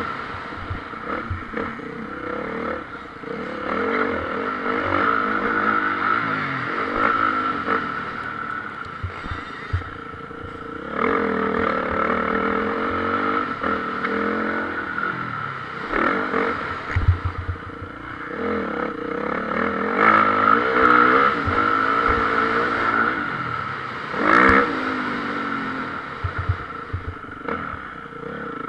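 Motocross bike engines revving hard and easing off as they ride the track, the pitch climbing and dropping again and again.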